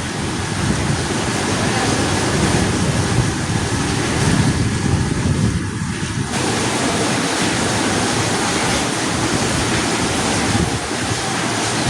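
Heavy rain pouring in a steady loud rush, with wind rumbling on the microphone.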